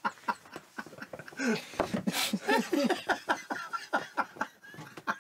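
A man laughing heartily in quick bursts, with others laughing along, and a brief hiss about two seconds in.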